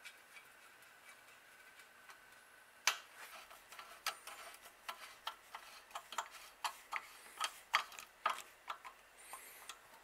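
Sharp metallic clicks, irregular at about three a second, from a ratchet and socket turning a bolt on the bicycle's chain guard bracket. They begin about three seconds in, after a few seconds of faint ticking.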